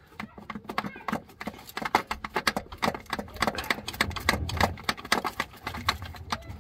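Irregular knocks and clatter of a loosened VW T4 starter motor being wiggled and worked out of its mounting by hand, metal against metal.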